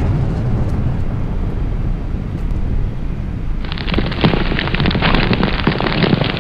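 Explosion sound effect dying away as a low rumble. About three and a half seconds in, a fire effect joins with many sharp crackles of burning flames.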